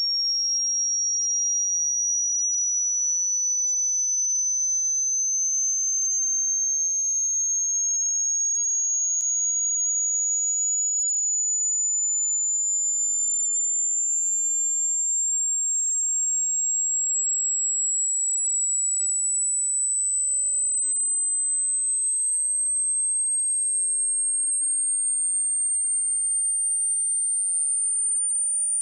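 A single high-pitched electronic sine tone gliding slowly and steadily upward in pitch: a test-tone frequency sweep.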